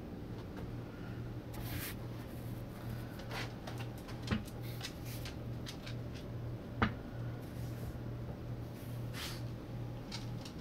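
Light rustling and scattered small clicks from handling, with two sharper knocks about four and seven seconds in, over a steady low hum.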